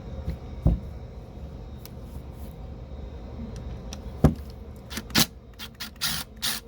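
Metal tools and parts of a car starter motor being handled during disassembly: two sharp knocks, then a quick run of metallic clinks and clatter near the end.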